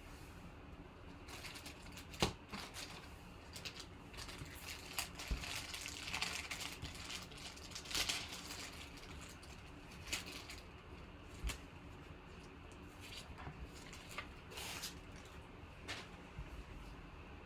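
Packs of trading cards being opened and handled: wrappers crinkling and tearing, and cards sliding and shuffling, with scattered sharp clicks. The rustling is busiest about six to eight seconds in.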